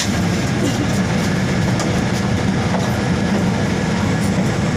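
Steady engine and road rumble of a moving vehicle, heard from inside the cabin.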